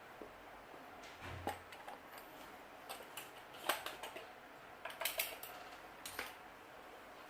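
Light, scattered clicks and taps of small repair tools against an opened phone's board and casing, a few seconds apart with a couple in quick succession.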